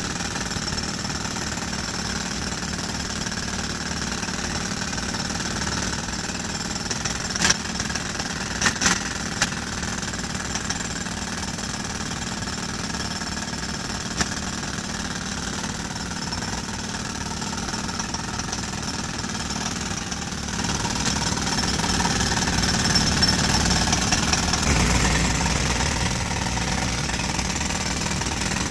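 Concrete breaker hammering rapidly and continuously into pile concrete, with an engine running under it. There are a few sharp knocks a third of the way in, and the hammering grows louder about two-thirds through.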